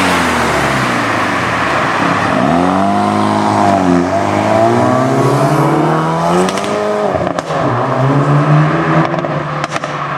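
Hyundai i30N's turbocharged four-cylinder engine revving, its pitch rising and falling several times, with a few sharp exhaust pops in the second half.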